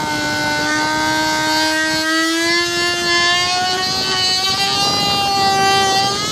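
Dremel rotary tool running at high speed with its bit working the cut edge of a hole in a plastic kayak deck: a steady motor whine whose pitch slowly rises.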